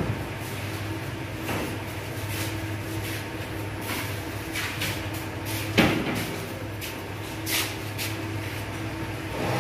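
A steady low mechanical hum with scattered knocks and clunks, the loudest about six seconds in.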